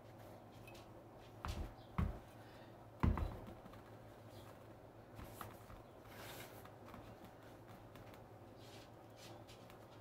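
A ceramic vase being handled and set down on a table, with three dull knocks between about one and a half and three seconds in, the last the loudest. After that comes soft, faint rubbing and rustling of a cloth buffing wax on the vase.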